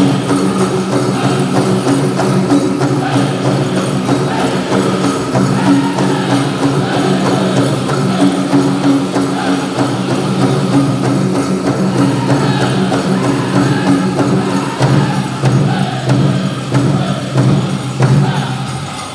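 Powwow drum group singing together over a steady beat on a big powwow drum, with dancers' bells jingling; the song stops near the end.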